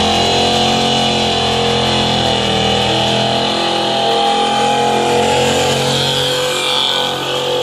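Older Ford pickup truck doing a burnout: its engine is held at high, steady revs while the rear tyres spin and smoke. The sound eases slightly near the end.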